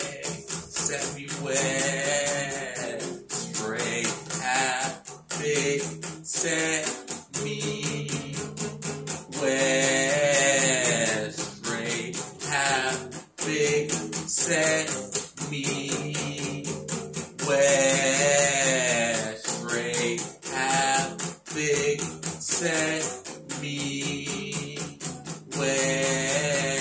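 A man singing full-voiced while strumming an acoustic guitar, steady rapid strokes under a long, wavering vocal line.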